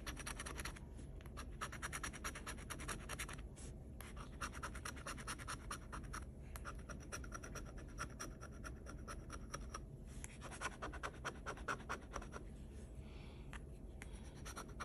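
Metal bottle opener scraping the latex coating off a paper scratch-off lottery ticket in quick, rapid strokes. The strokes come in runs broken by brief pauses.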